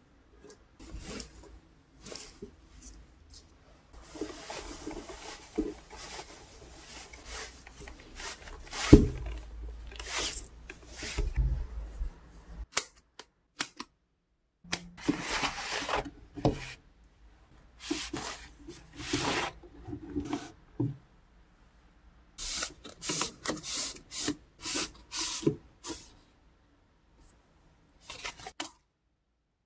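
Unwrapping handling noise: a cloth drawstring bag and foam wrapping rustling as they are pulled and handled, with one sharp knock about nine seconds in. After a short gap, scissors cut the tape on the foam wrapping, followed by a run of short, quick rustles and snips.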